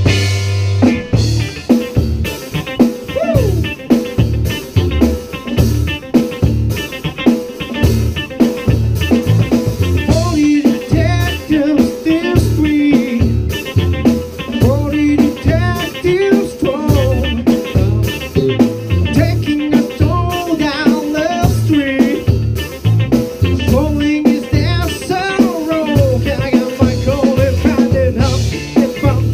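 A rock band playing live in a rehearsal room: electric guitars, bass and a drum kit keep up a steady driving rhythm under a sung lead vocal. A held chord gives way to the song about a second in.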